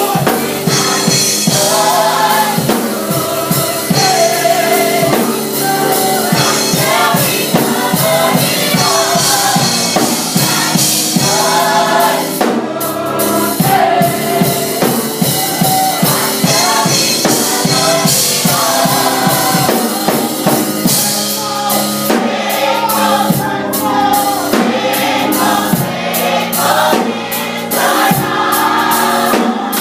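Young adult gospel choir singing together over a drum kit and band accompaniment.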